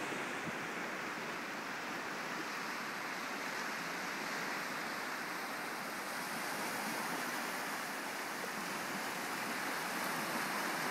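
Waves washing steadily on a shore.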